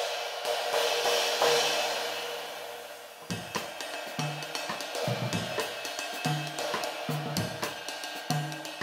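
PGB Artisan 22-inch Stellar ride cymbal with rivets (2200 g) struck with a wooden drumstick, ringing in a long decaying wash. A little over three seconds in, a steady ride pattern begins over a drum-kit groove with low drum beats about once a second.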